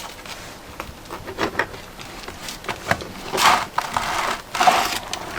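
Carving a smoked turkey: small knocks of knife and bird against the cutting board, then two longer scraping, tearing passes, about three and a half and four and a half seconds in, as the meat is worked apart.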